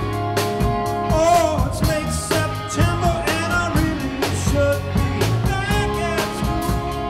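Live rock band playing: a man sings lead with wavering held notes over acoustic and electric guitars and drums.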